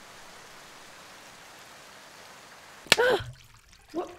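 Steady rain falling, then a sudden, loud, short cry about three seconds in that cuts the rain off, and a shorter, quieter cry near the end.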